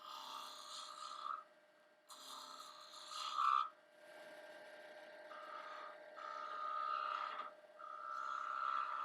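Wood lathe running while a turning tool cuts into a spinning wooden spindle, shaping the shoulder and neck. The scraping of the tool comes in two short cuts in the first few seconds, then runs more continuously over the steady hum of the lathe.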